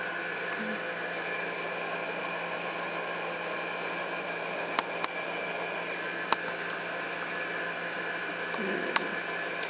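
A steady mechanical hum with a few fixed tones in it, broken by four or five sharp clicks in the second half.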